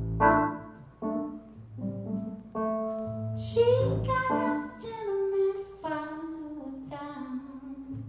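A woman singing live, accompanying herself on a keyboard, with chords struck about once a second under the sung phrases.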